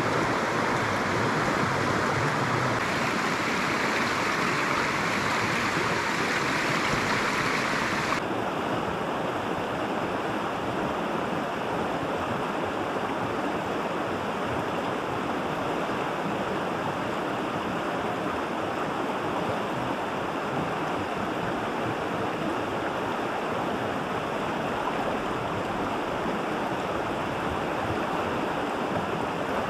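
Shallow mountain trout stream running steadily over stones. About eight seconds in, the brighter, hissier part of the sound drops away and the water sounds duller.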